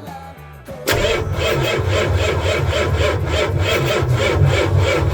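Ford E350's 7.3-litre V8 diesel engine being cranked by the starter, kicking in about a second in with an even, rather slow chug of about four beats a second without firing. The slow cranking is a sign of a weak battery: the owner says fuel is getting through but there isn't enough power to start it.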